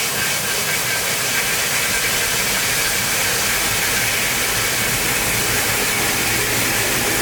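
Century-old microhydro turbine running with no load at its runaway speed: a steady loud rush of the water jet on the spinning runner, with a faint steady mechanical tone above it.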